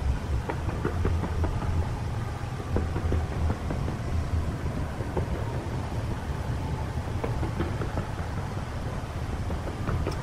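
Fireworks going off one after another: continuous low booms mixed with many sharp crackles and pops.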